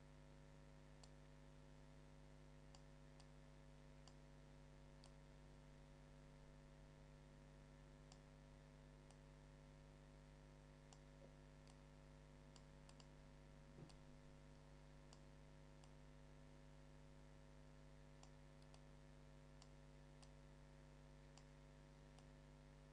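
Near silence: a steady electrical hum with faint, irregular computer mouse clicks as points are dragged, about one or two a second, and a slightly louder knock about two-thirds of the way through.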